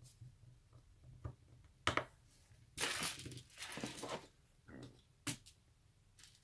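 Tool-handling noises on a work table: a few sharp clicks and taps, with about a second and a half of rustling in the middle, as a small hand screwdriver is set down and a pen-style electric screwdriver is picked up. No motor is heard running.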